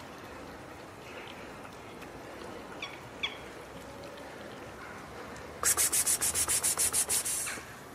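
A rapid, harsh rattle of about a dozen clicks, roughly seven a second, starting about six seconds in and lasting nearly two seconds, over steady faint outdoor noise with a few short high chirps near the middle.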